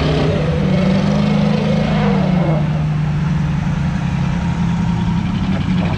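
Off-road vehicle engines running under load with a steady low drone during a tow-strap recovery, a Jeep Wrangler pulling a stuck Land Rover Discovery. The drone drops slightly in pitch about two seconds in.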